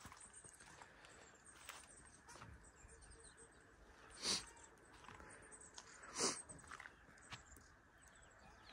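Faint outdoor ambience with a steady faint high hum, broken by two short animal calls about two seconds apart.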